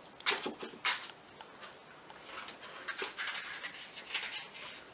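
A matchstick scraped again and again against the side of a matchbox, about five short scratchy strokes, the match failing to catch.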